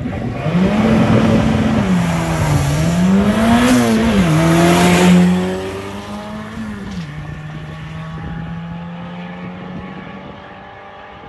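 Import drag race car making a full-throttle pass down the strip. The engine note climbs and then drops back at each of about three gear shifts. It is loudest about five seconds in, then holds a steady note and fades as the car runs away.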